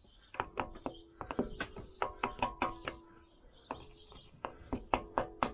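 A small hammer tapping a Lambretta rear hub cone down onto the splined hub shaft: a string of quick, irregular light taps, each with a short metallic ring, and a brief pause around the middle.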